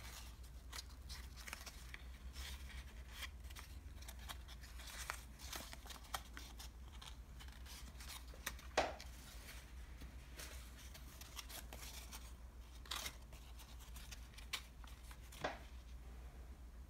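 Stiff ice cream box paperboard being folded and creased by hand: scattered crackles and rustles, with a few sharper snaps, the loudest about nine seconds in.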